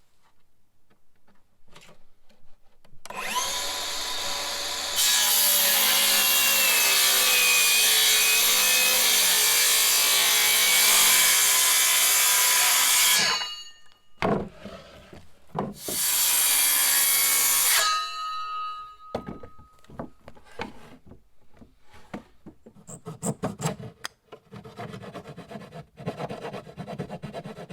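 Milwaukee cordless circular saw spinning up about three seconds in and cutting through a wooden panel for about eight seconds, then a second, shorter cut of about two seconds. Scraping and knocking of the cut pieces being handled follow.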